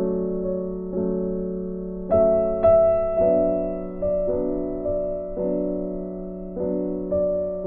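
Background piano music: soft chords struck about once a second, each one fading before the next.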